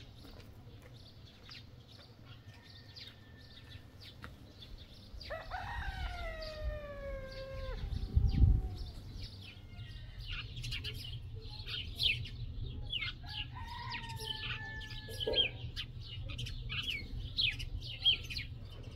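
A rooster crows twice: a long crow falling in pitch about five seconds in, and a shorter one about two-thirds of the way through, over scattered small bird chirps. A dull thump comes just after the first crow.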